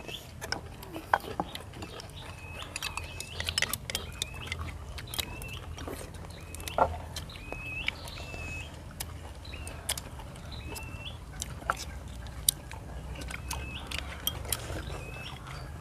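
Chopsticks clicking and tapping against porcelain rice bowls while people eat, with a bird repeating a short chirp about once a second in the background.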